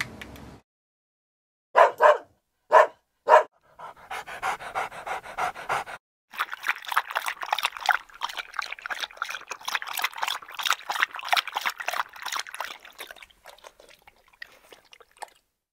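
A dog barks four times in quick succession, then pants rapidly for about ten seconds, fading near the end.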